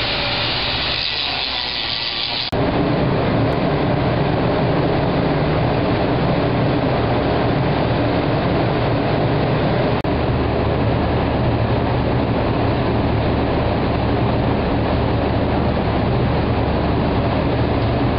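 Heavy metalworking machinery running with a steady drone and a low hum; the sound changes abruptly about two and a half seconds in and again about ten seconds in.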